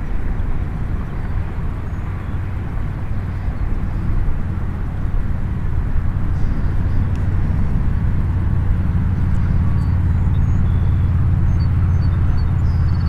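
Wind buffeting the microphone: a steady low rumble with a hiss above it, growing a little stronger about eight seconds in.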